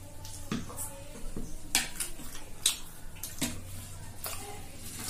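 Metal spoons clicking and scraping against small bowls of egg curry while eating, about six sharp clicks spread through, the loudest about halfway through.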